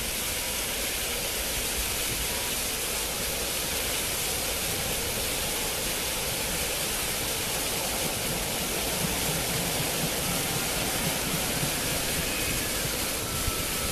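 Water-curtain fountain: many thin jets of falling water splashing steadily into the fountain's basin, a constant rushing hiss.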